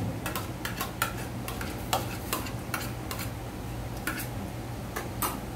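Light, irregular clicks and clinks of dishes and utensils being handled, over a steady low hum.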